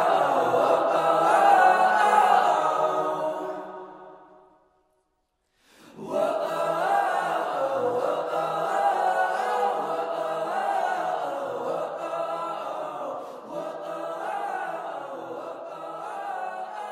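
Choir singing on the soundtrack, fading out about four seconds in; after about a second of silence another choral passage begins and runs on, fading near the end.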